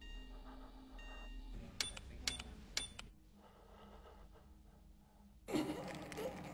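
Quiet film sound effects: faint steady electronic tones over a low hum, then three sharp clicks about two seconds in. Near the end comes a short burst of rustling noise.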